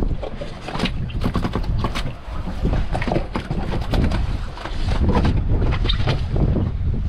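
Wind buffeting the microphone in a steady low rumble, with irregular splashes and knocks of water against a small boat at sea.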